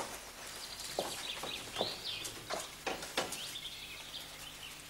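Small birds chirping in short rising and falling calls, with a few soft knocks in the first half.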